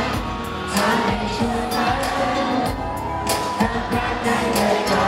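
A male singer singing live into a handheld microphone over backing music, heard through the venue's PA.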